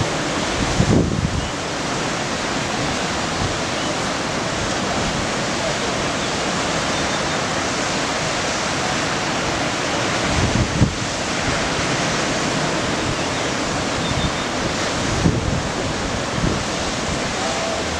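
Breaking ocean surf, a steady wash of waves. Wind buffets the microphone in a few brief low bumps: about a second in, near eleven seconds and around fifteen seconds.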